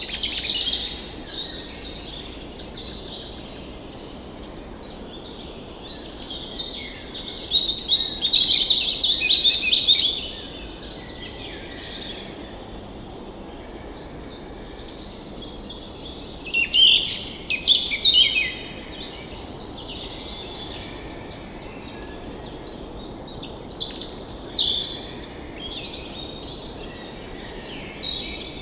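Songbirds singing in loud, repeated phrases with short gaps between them, one voice adding a thin high trill, over a steady low rush of flowing stream water.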